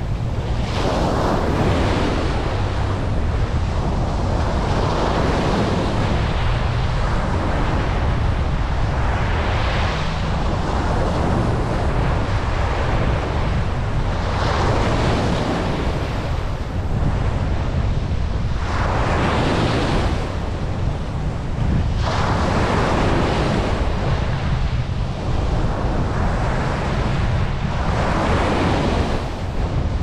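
Ocean surf breaking and washing up a sandy beach. A hiss of foam swells about every four to five seconds over a steady low rumble of wind on the microphone.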